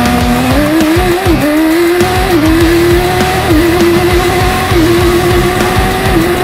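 Drag-racing car engine at high revs: its pitch climbs over the first couple of seconds, then holds with short dips about every second and a bit. Music plays underneath.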